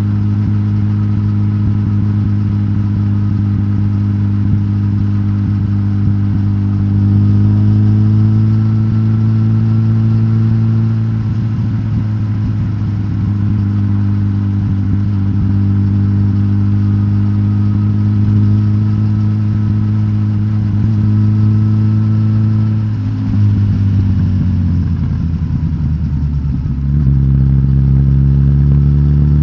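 Suzuki GSX-S1000GT's inline-four engine, de-catted with the stock exhaust, running steadily at moderate revs. The note steps up slightly about a quarter of the way in, drops near the end, then rises to a higher note.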